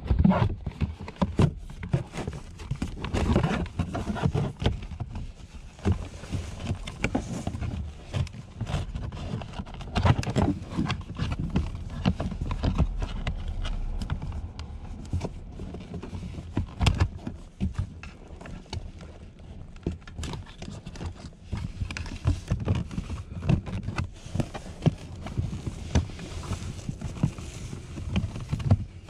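A hard plastic under-dash trim panel of a Mercedes-Benz SLK (R172) being handled and fitted in the footwell: irregular knocks, clicks and scrapes of plastic against plastic.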